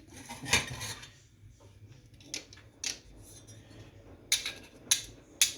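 About half a dozen sharp, irregular clicks and clinks of a small stove thermometer being handled, with its back tried against metal to see if it is magnetic.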